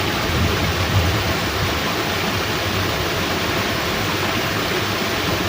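Steady rushing of water through a fishpond sluice gate, mixed with heavy rain.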